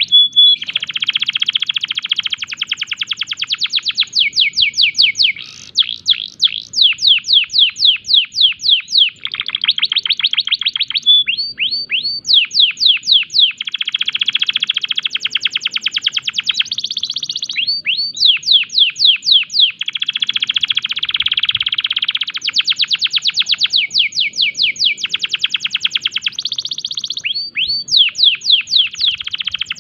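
Domestic canary in breeding condition singing a long, unbroken song, loud and high-pitched. Runs of rapid downward-sweeping notes, about seven or eight a second, alternate with dense buzzy trills held for a couple of seconds each.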